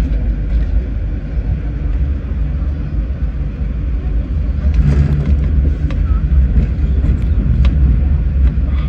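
Hong Kong Light Rail Phase III car running along the track, heard from inside the car as a steady low rumble with a few sharp clicks.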